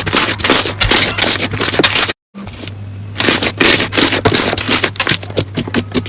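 Slime crackling and popping as it is squeezed and worked, in quick irregular snaps over a low steady hum. It drops out briefly about two seconds in, then starts again.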